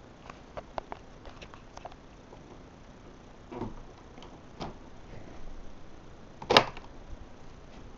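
Scattered light clicks and knocks of plastic parts being handled, with a couple of duller thuds and one loud sharp knock about six and a half seconds in; the vacuum cleaner is not yet running.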